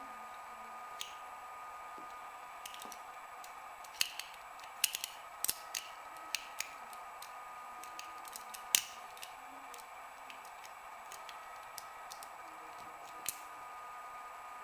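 Irregular light metal clicks and ticks of a homemade lever pick and a small screwdriver tensioner working inside an old two-lever padlock as its levers are lifted and set. The clicks come thickest about four to seven seconds in, with a sharper one near nine seconds.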